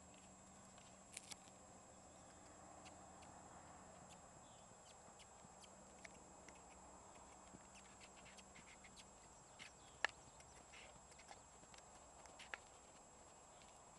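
Faint hoofbeats of a young Hanoverian horse trotting on arena sand, muffled by the footing. A few sharper clicks stand out, the loudest about ten seconds in.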